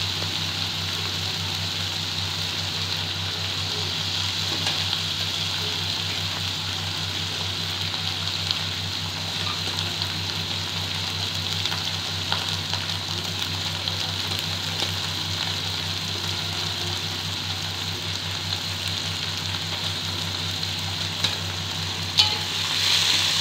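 Oyster mushrooms and mustard greens sizzling steadily in hot oil in a pan, with occasional light clicks from stirring and a steady low hum underneath. A louder clatter comes near the end.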